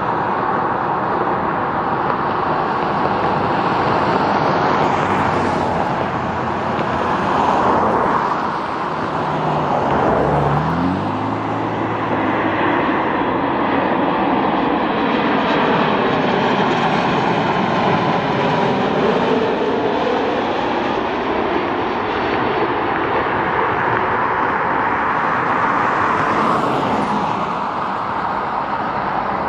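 Boeing 737 MAX's CFM LEAP-1B turbofan engines running loud and steady as the jet passes low with its gear down and climbs away. The jet rush wavers with sweeping, phasing tones as it goes by.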